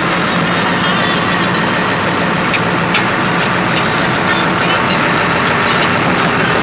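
Tractor engine running steadily, heard close up, with two short clicks about half a second apart around the middle.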